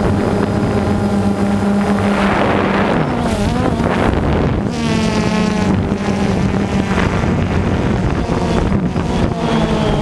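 DJI Phantom 2 quadcopter's electric motors and propellers whirring close to the microphone: a steady hum whose pitch rises and falls between about two and five seconds in as the drone manoeuvres.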